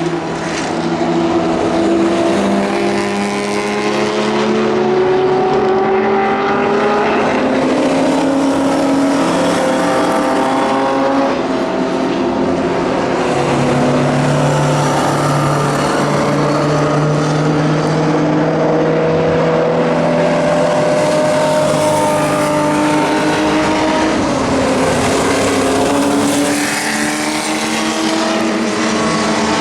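Historic race car engines, Ford GT40s and British classics, running hard at racing speed. Several cars are heard at once, their engine notes rising and falling in pitch as they pass and change speed.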